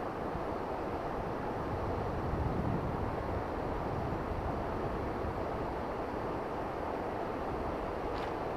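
River water rushing steadily in the upper reaches of a river swollen after a typhoon. There is a faint short tick near the end.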